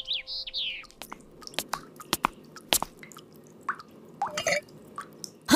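Cartoon sound effects: a few short falling chirps at the start, then a scattered series of sharp clicks and pops, a few short gliding squeaks about four seconds in, and a louder rising sound at the very end.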